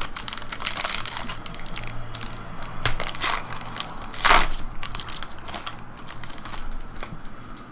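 Plastic-foil wrapper of a 2015 Topps WWE Undisputed trading card pack being torn open and crinkled in the hands. It is a run of crackling rustles, loudest about four seconds in.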